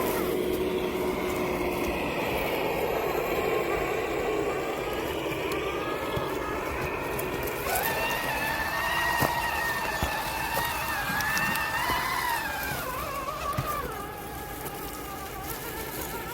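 Electric motor and gearbox of a 3D-printed RC crawler whining as it is driven, the pitch wavering up and down with the throttle and holding a stronger, steadier whine for several seconds in the middle.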